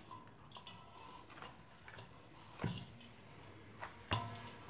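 Hands kneading stiff wheat dough in a stainless steel bowl: faint squishing with scattered soft knocks and taps against the bowl.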